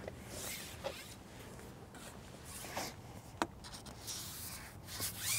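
A carbon fishing pole being shipped out over the water, its sections sliding and rubbing through the hands with soft swishes, and a couple of sharp clicks.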